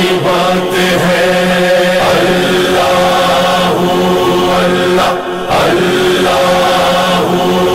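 A man singing a manqabat, an Urdu devotional poem, in long held notes that change pitch a few times, over a steady low drone.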